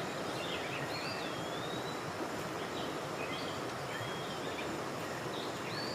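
Steady rush of creek water, with a songbird singing short whistled phrases over it several times.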